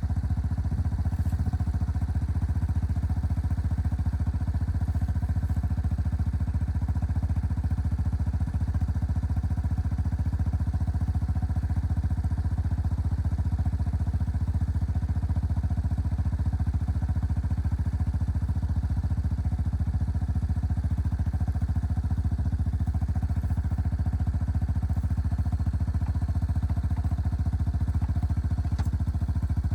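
An engine running steadily at an unchanging speed, a low even drone.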